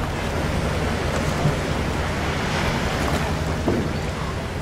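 Choppy sea water sloshing and splashing around a diver at the surface beside a boat's ladder, with wind on the microphone and a steady low hum underneath.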